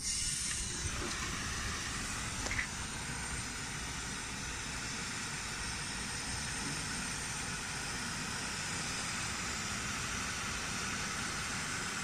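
Gas hissing steadily out of an air-conditioner's refrigerant line as the system is flushed, blowing out dirty compressor oil. The hiss comes on suddenly and stays even.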